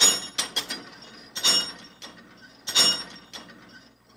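Multi-station weight machine clanking with each repetition of a seated leg extension: sharp metallic knocks from the weight stack and its frame, about one every second and a half, with a few smaller clicks after the first.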